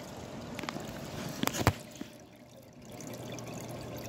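Water trickling and pouring into an outdoor fish tub, with a few sharp clicks about a second and a half in. A low steady hum joins near the end.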